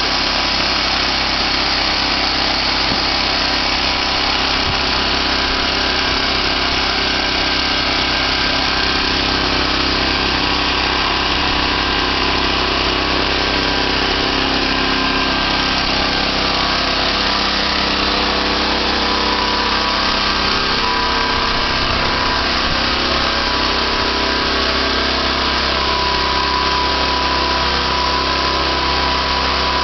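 Homemade band sawmill running, its engine going steadily at a loud, even level. A steady whine grows stronger in the last few seconds.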